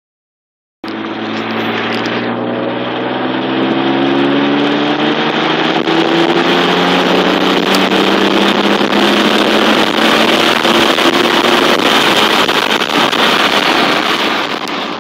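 Mitsubishi 3000GT VR-4's twin-turbo V6 pulling under acceleration, starting about a second in, its pitch climbing slowly for several seconds and then holding nearly steady.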